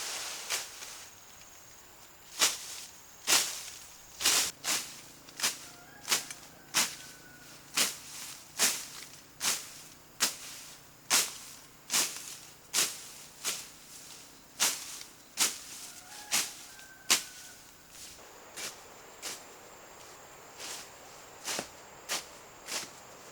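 Footsteps at an even walking pace, about one crunching step a second, growing fainter and sparser in the last few seconds.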